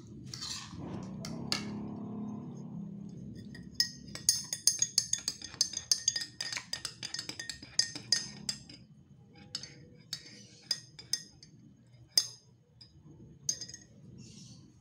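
Metal spoon clinking against tableware: a quick run of bright, ringing clinks starting a few seconds in, thinning to a few scattered clinks near the end.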